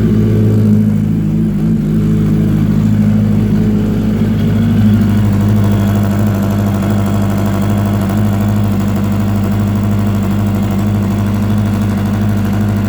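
2004 Yamaha R1's inline-four engine running steadily at idle, with the strange noise from the left-hand side of the engine that the owner cannot place and wonders may be a spun bearing or the valves. About five seconds in the higher part of the sound turns into a faster flutter.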